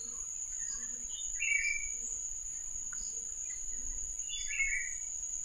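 Quiet background: a steady high-pitched tone, like an insect's continuous trill, with two short bird chirps, about a second and a half in and near the end.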